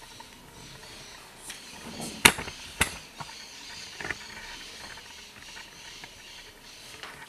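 Two sharp clicks about half a second apart, with a few fainter ticks, over a faint steady room hiss.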